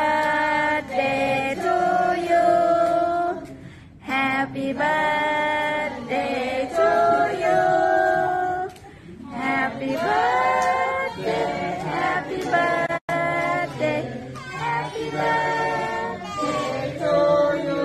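A group of people singing a birthday song together in long held notes, with short pauses between the lines.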